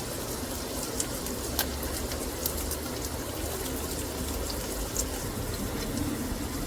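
Steady rush of running water, like a kitchen tap filling a vessel, with a few faint light clicks.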